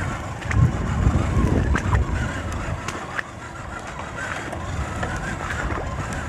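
Electric RC crawler truck wading through floodwater: a faint wavering whine from its electric motor and water churning around the wheels, with scattered light clicks. A low rumble is loudest in the first two seconds or so.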